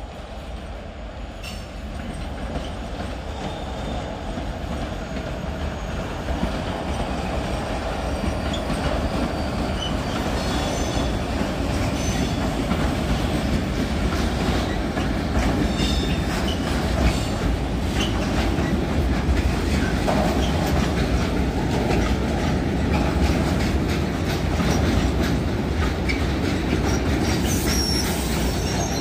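A freight train of tank wagons hauled by an ST44 diesel locomotive approaches and rolls past close by, growing steadily louder. The wheels clatter over the rail joints, with short high wheel squeals now and then.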